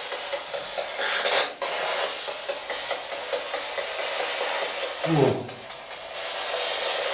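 Spirit box sweeping through radio static: a steady hiss, a louder burst about a second in, and a short falling-pitch snatch of sound about five seconds in.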